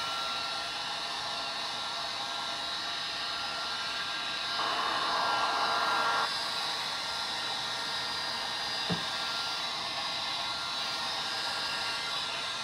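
Electric heat gun blowing steadily over freshly poured resin to pop surface bubbles: a constant hiss of hot air with the fan motor's whine. It grows louder for about a second and a half near the middle, with a small knock about nine seconds in.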